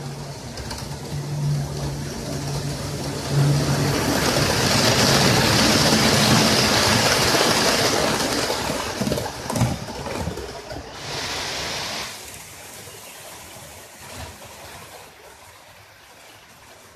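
Model train running on its track: a steady motor hum as it approaches, then a loud rush of wheels on rail as it passes close by, with a few clicks over the rail joints about nine to ten seconds in, fading away after about twelve seconds as it moves off round the layout.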